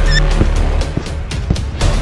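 Background music with a steady drum beat over a low bass line.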